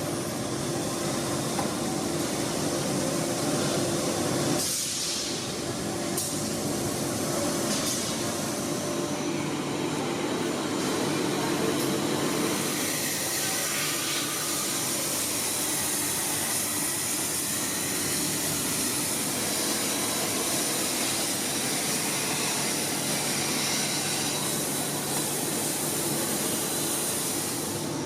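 Industrial vacuum cleaner running steadily, its motor and suction hiss drawing up fine metal shavings.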